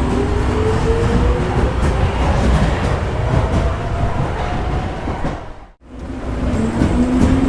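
Subway train pulling out of a station: a low rumble of wheels on track with the traction motors' whine rising slowly in pitch as the train picks up speed. Just before 6 s the sound cuts out briefly and fades back in as the recording starts over.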